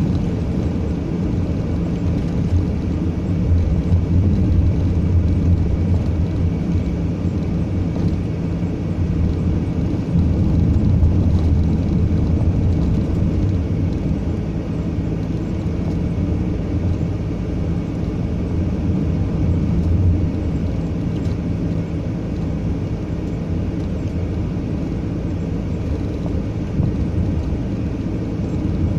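Steady engine and road noise of a delivery vehicle on the move, a continuous low drone that rises and falls only slightly.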